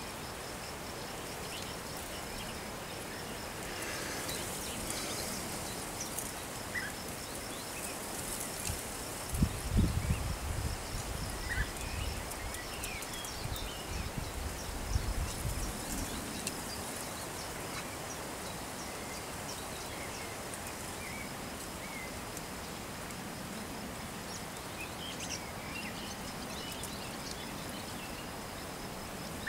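Outdoor summer ambience: an insect trilling in a steady, fast pulse, with a few faint short bird calls scattered through. Bursts of low rumbling from about ten to sixteen seconds in are the loudest part.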